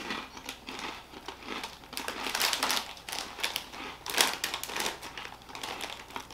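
A McCoy's crisp packet crinkling in irregular bursts as a hand handles it and reaches inside.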